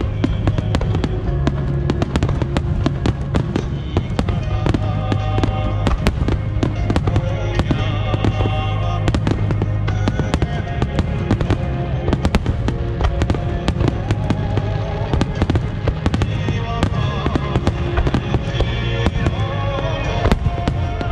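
Aerial fireworks in a large starmine barrage: shells bursting and crackling in quick succession, several bangs a second, with music playing over them.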